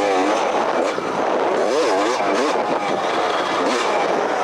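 Onboard sound of a Honda 250cc two-stroke motocross bike's engine being ridden hard, revving up and dropping back several times as the throttle is worked, with wind and rushing noise over the microphone.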